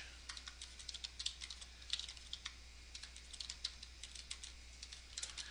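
Typing on a computer keyboard: a quiet, irregular run of light key clicks.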